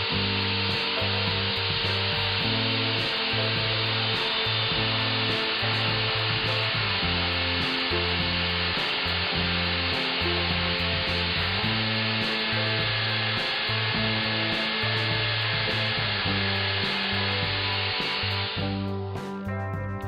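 Electric drill driving the cutter of a vintage Arcoy dovetail jig, running steadily as it cuts dovetail tails in wood, then stopping near the end. Background music plays throughout.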